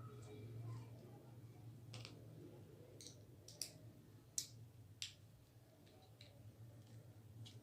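A few scattered sharp clicks of small parts being handled as a fishing reel is taken apart, over a low steady hum.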